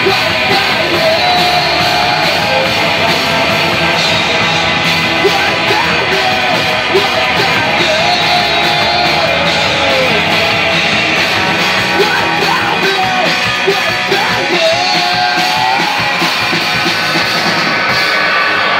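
Live rock band playing loud: two electric guitars, a drum kit and shouted lead vocals.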